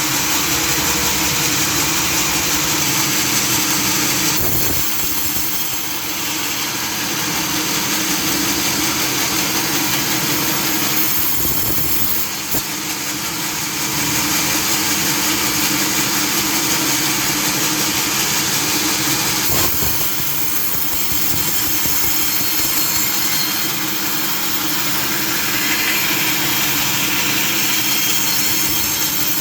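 Sawmill saw machinery running steadily with a constant hum and a loud hiss, the sound shifting briefly a few times, about 5, 12 and 20 seconds in.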